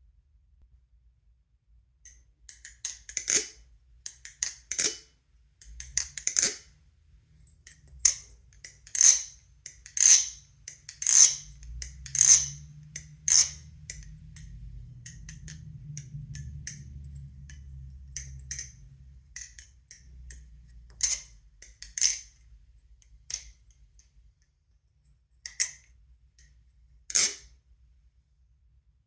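Nabalis Extrusion 2 balisong being flipped: sharp metallic clicks and clacks as the handles swing and snap open and closed, coming in irregular bunches and loudest in the middle. A faint low rumble runs under the middle stretch.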